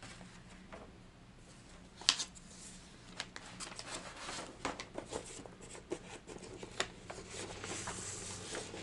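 Paper and cardboard handling as a vinyl record is slid out of its album jacket and paper inner sleeve: faint rustling and sliding with scattered light clicks, the sharpest about two seconds in, and a soft sliding hiss near the end as the disc comes out of the sleeve.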